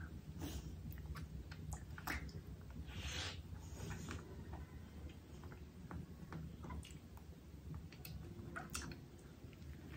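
Close-miked chewing and mouth sounds of a person eating, made of scattered small wet clicks, with a longer noisy bite-and-chew about three seconds in.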